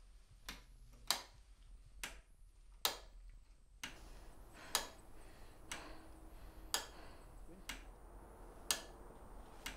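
Clock ticking, about one tick a second, alternating stronger and weaker ticks.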